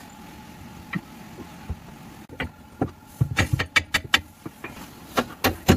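Irregular clinks and knocks of metal hand tools working on a car's rear axle and shock absorber, starting about two seconds in and coming thick and fast for a few seconds, the loudest knock near the end.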